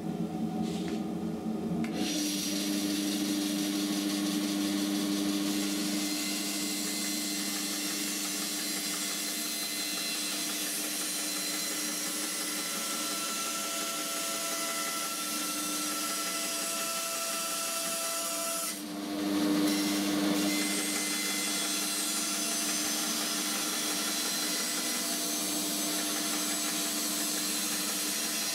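Lumberjack BS305 12-inch band saw running, its blade cutting through plywood as the board is turned round on a circle-cutting jig, with dust extraction running. The noise comes up about two seconds in and briefly dips and swells about two-thirds of the way through.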